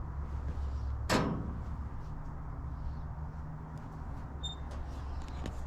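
An oven door shut with a single sharp clack about a second in, over a steady low hum; a second, slightly higher hum joins about two seconds in.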